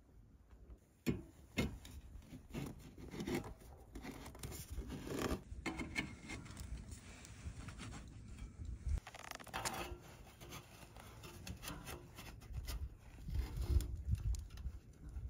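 Tape being pulled off the roll, torn and pressed around a joint in a metal stovepipe, with irregular rustling, ripping and light clicking handling sounds.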